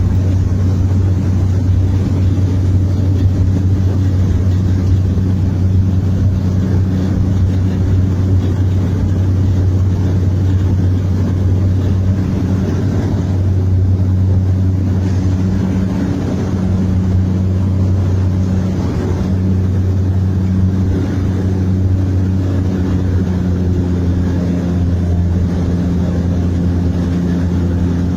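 Seaplane's propeller engine running with a steady, loud low drone, at power for take-off.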